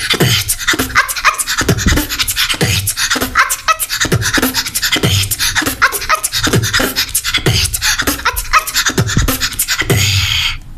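A young girl beatboxing a continuous routine that combines her first six sounds. Deep kick-drum thumps come roughly once a second under fast mouth clicks and hissing hi-hat sounds.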